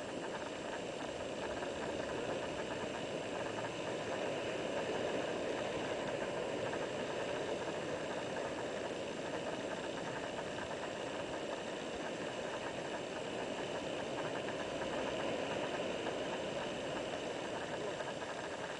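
Ocean surf breaking and whitewater rushing over shoreline rocks, a steady rushing noise with no separate crashes standing out.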